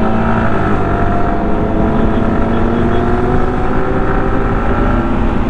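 Yamaha R15M's single-cylinder engine running at a steady cruise, its pitch drifting slightly, with heavy wind rushing over the microphone.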